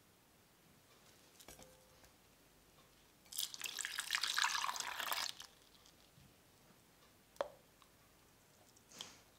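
Milk poured from a jug into a stainless steel saucepan of sliced banana, a splashing pour lasting about two seconds. A few faint knocks come before it and a short sharp click follows.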